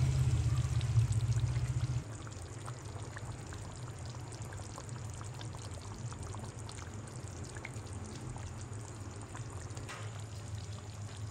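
Thick creamy curry gravy simmering in an open pan, with small scattered bubbling pops. A loud low hum runs for the first two seconds and stops suddenly.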